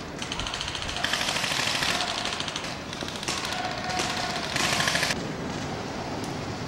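Airsoft guns firing several short fully-automatic bursts, each a rapid, evenly spaced clatter of shots, the longest lasting about a second.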